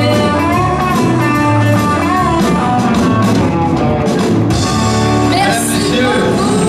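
Live band playing a song: a woman sings into a microphone over electric guitar, keyboard and drums.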